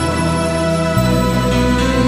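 Background music of sustained chords, with a chord change about halfway through.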